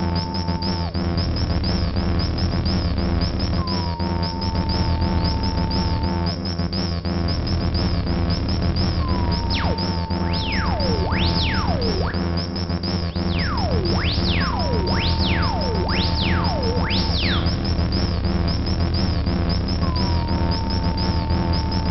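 Buchla and Eurorack modular synthesizers playing an ambient soundscape. A dense low drone pulses under a fast, high chirping texture, while a held tone that slides briefly down into pitch comes back about every five and a half seconds. In the middle, a flurry of fast falling sweeps drops from high to low.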